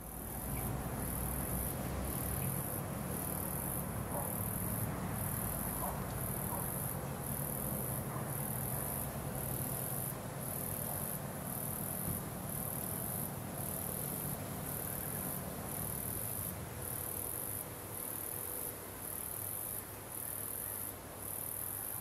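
Insects chirping in a steady rhythm, a high-pitched pulse about once a second, over a low hum.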